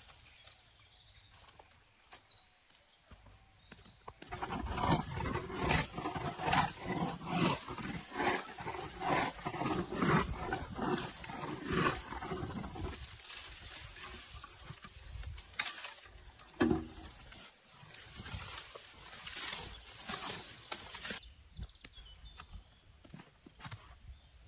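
A quick series of knocks, about two a second, starting about four seconds in, thinning out from about halfway and stopping shortly before the end.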